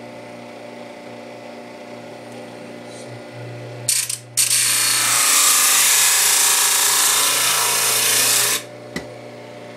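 Electric disc sharpener grinding a steel tool: a loud harsh hiss of metal on the spinning abrasive disc for about four seconds, starting about four seconds in and cutting off abruptly. A steady hum runs underneath, and there is a click just after the grinding stops.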